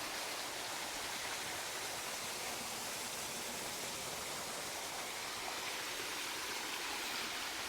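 Steady rushing of water from a small waterfall and the stream at its foot, an even wash of sound with no change.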